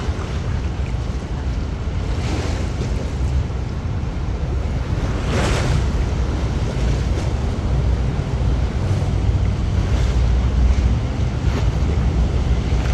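Austal 47.5 m high-speed catamaran ferry getting under way: a steady low rumble from its MTU diesels and KaMeWa waterjets, with water rushing from the jet wash. It grows louder from about halfway through as the boat picks up speed. Wind gusts buffet the microphone now and then.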